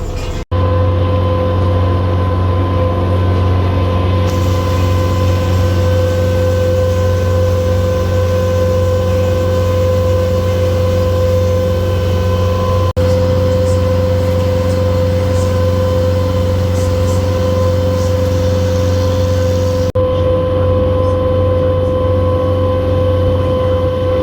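A boat's engine running steadily, heard on board as a loud, even low hum with a steady whine above it, broken by a few very brief dropouts.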